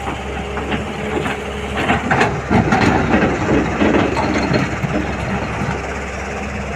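Diesel excavator engine running steadily, with a stretch of irregular crunching and knocking from about two to five seconds in as the bucket works soil into a truck.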